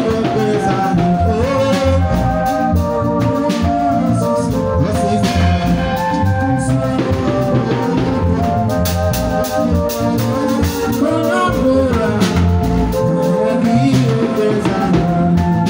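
Gospel band music through a PA: an electronic keyboard playing held, changing chords over a bass line and a steady drum beat.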